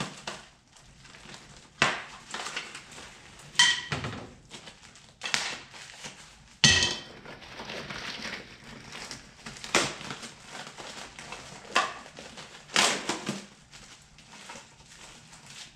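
Plastic packaging crinkling and rustling as new drum brake shoes are unwrapped, with irregular sharp clinks of the metal shoes and hardware, a few of them ringing briefly.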